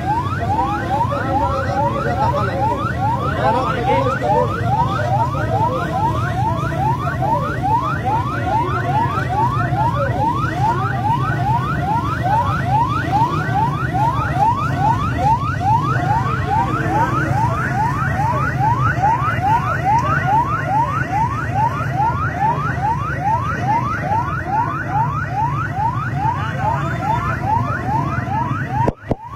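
Ambulance siren on a yelp cycle: a fast, even run of rising wails, about two to three a second, with a brief dropout near the end.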